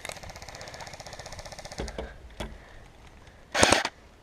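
Airsoft electric gun firing a rapid full-auto string of shots that stops about two seconds in, followed by a couple of single knocks. Near the end comes a short, loud, noisy burst.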